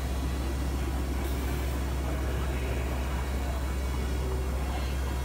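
Steady hum of small multirotor drones' propellers over a low rumble, with no change in level.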